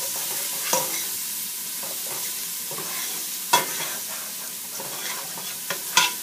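Minced garlic sizzling in hot olive oil in a stainless steel pot, a steady hiss, while a metal spoon stirs it and scrapes and clinks against the pot. A few sharper clinks stand out, the loudest about three and a half seconds in and near the end.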